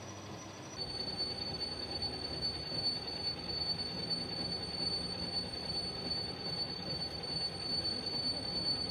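Machinery running with a steady high-pitched squeal over a noisy mechanical hum. About a second in, it jumps abruptly to a lower, louder squeal.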